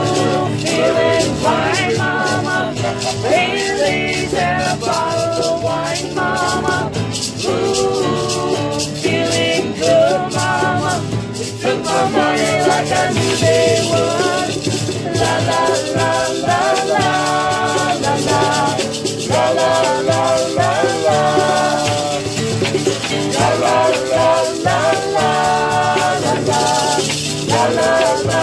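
A recorded song plays while a pair of maracas is shaken in time and several people sing along.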